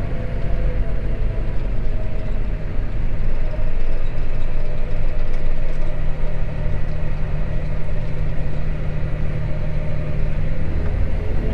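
John Deere row-crop tractor's diesel engine running steadily as it drives down the road, a continuous low drone that gets a little louder a few seconds in.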